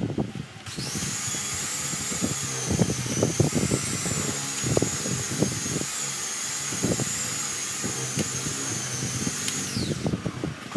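A power sander, most likely working the body filler on the tailgate, runs with a steady high-pitched whine. It starts under a second in, then winds down in pitch and stops near the end, with knocks and scraping of the tool against the panel underneath.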